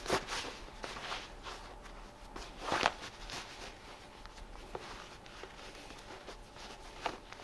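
Fabric rustling as a cotton apron's waist strings are pulled and knotted, in short scattered rustles, the loudest near the start and about three seconds in.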